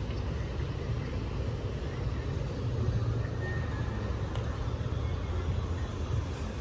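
Steady low rumble of outdoor city ambience, with no distinct events.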